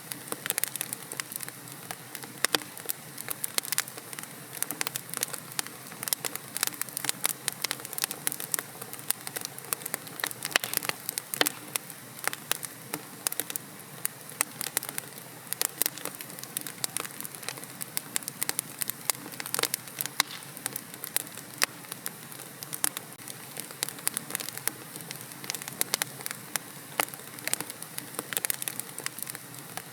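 Wood logs burning in a fireplace, crackling steadily with many sharp, irregular pops over a soft hiss of flame.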